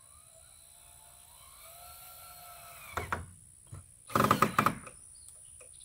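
Power drill driving a screw into the door frame: a faint whir first, a sharp click about three seconds in, then a short loud burst of rapid clicking about four seconds in.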